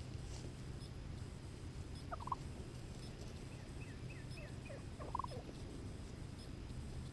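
Wild turkey tom gobbling twice, once about two seconds in and again about five seconds in, with a few short, higher falling notes between the gobbles.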